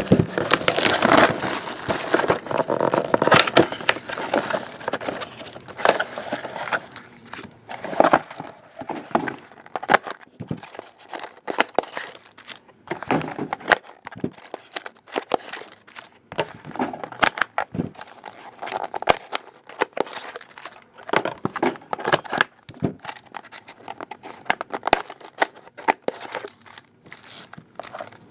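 Plastic wrapping of a trading-card box and its foil packs crinkling and tearing as they are opened, with a stack of cards handled. It is a dense, irregular run of crinkles, rips and small clicks, loudest in the first few seconds.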